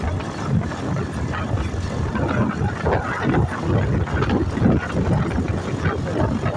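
A vehicle moving along a paved road: engine and road noise mixed with wind rushing over the microphone in uneven gusts.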